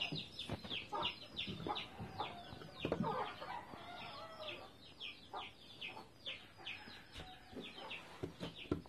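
Chickens clucking and peeping: a steady run of short, high, falling peeps, several a second, with scattered lower clucks.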